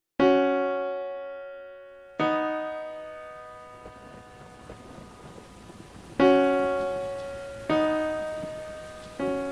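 Piano chords struck one at a time and left to ring out, five in all, spaced one and a half to four seconds apart. From about two seconds in, a steady rain-like hiss rises underneath the piano.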